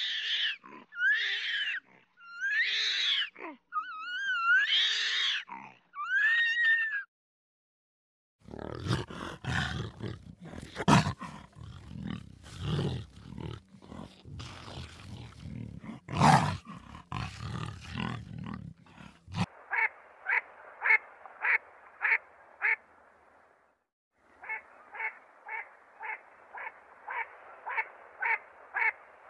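A run of animal calls in three parts. First come high, wavering calls. From about eight seconds a leopard growls roughly in loud bursts. Then short, evenly repeated calls follow, about two a second, to the end.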